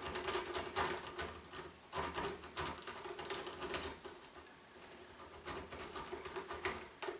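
A Bogota rake scrubbing in and out of a Maxus padlock's pin-tumbler keyway, its metal teeth clicking rapidly over the pins. The clicking comes in quick runs, densest over the first three seconds and thinning out after.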